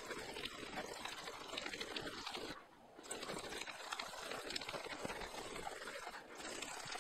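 A chunk of chaga fungus rubbed rapidly back and forth along a V-groove in a wooden stick, making a continuous scratchy scraping of fire-plow strokes meant to build friction heat for an ember. The strokes break off briefly a little under three seconds in, then carry on.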